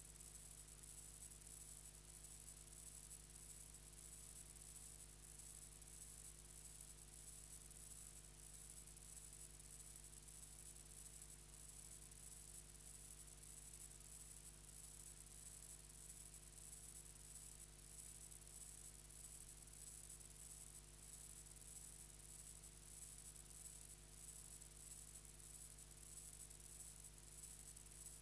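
Near silence: a silent film's empty soundtrack, with only a faint steady hiss and hum.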